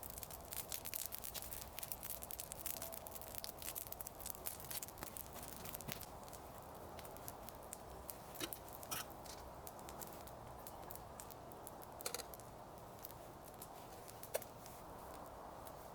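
Campfire burning with faint crackles and sharp pops, close together in the first half and more scattered later.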